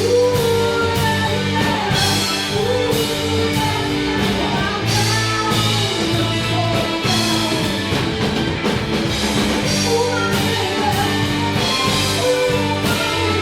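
Rock music with guitar and drum kit, playing at a steady level.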